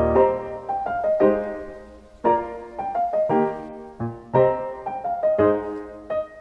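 Background piano music, with notes struck in short phrases that ring and fade.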